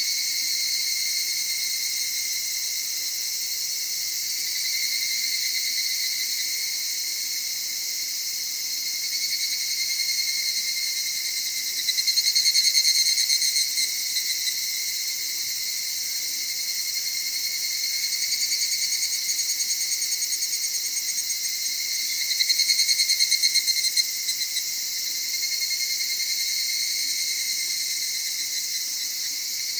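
Chorus of evening cicadas (higurashi, Tanna japonensis) singing steadily, with a high-pitched, soft, continuous trill. Two louder phrases of rapid pulsing stand out from the chorus, about twelve seconds in and again about ten seconds later.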